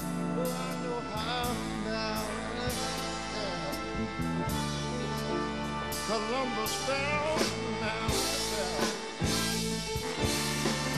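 Big band playing a slow jazz ballad live, with keyboard and sustained horn chords. A melody line bends in pitch over a steady cymbal beat, about one stroke every two-thirds of a second.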